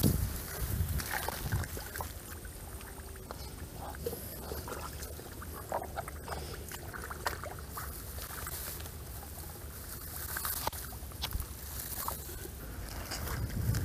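Hands working in wet mud and shallow muddy water: scattered squelches, small splashes and sharp little knocks over a steady low rumble.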